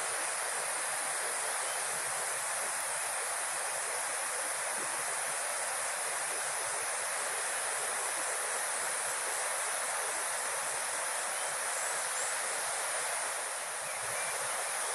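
Steady outdoor ambience: a constant rushing hiss with a high, even insect buzz over it. No machinery is running.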